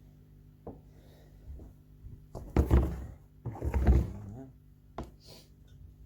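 Handling noise as objects are moved about: a few light clicks and knocks, and two louder, bass-heavy bumps and scrapes about two and a half and three and a half seconds in.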